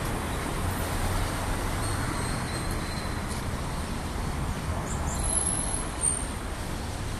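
Steady city street traffic noise, a low rumble of vehicles, with one brief knock about six seconds in.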